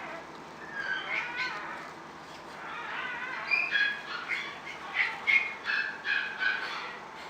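Kittens mewing in short, high-pitched cries, a few about a second in, then a quicker run of them through the second half.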